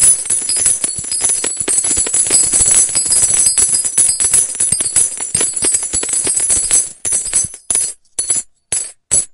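Large metal coins falling and clinking against each other in a dense, jingling shower. Near the end it thins to a few separate clinks and stops.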